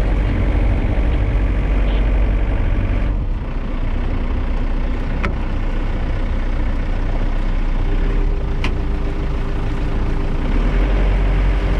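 Boat's outboard motor running with a steady low rumble, mixed with water wash at the stern; a steady higher whine comes in about two-thirds of the way through, and there are a couple of sharp clicks.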